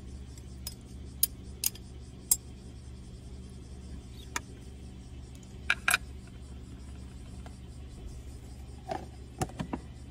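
Chopsticks clicking and tapping against a glass bowl and a plastic food container as cooked udon is scraped in, then a few clicks near the end as the container's lid is pressed shut, over a steady low hum.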